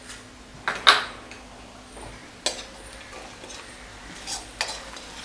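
A steel spoon clinking and scraping against a stainless steel wok as fried onions and peanuts are stirred, with a few sharp metal clinks, the loudest about a second in.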